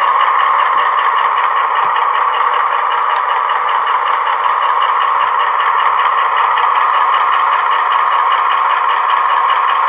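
Diesel engine sound of a Hymek model locomotive, played by a DCC sound decoder through a small speaker in the fuel tanks: a steady engine note with a faint regular beat, way too loud.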